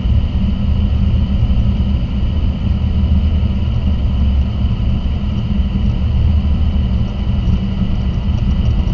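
Boeing 737 on its takeoff roll, heard from inside the cockpit: a loud, steady rumble of the engines at takeoff power and the wheels on the runway, with a steady high whine over it.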